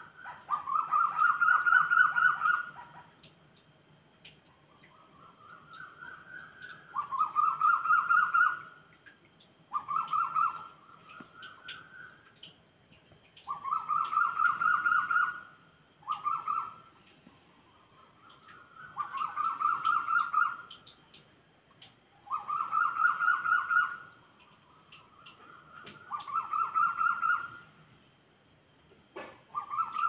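Night animal calls: a rapidly pulsed call that rises in pitch, repeated about every three seconds, with a fainter second caller answering between the louder calls. Under them is a steady high-pitched drone.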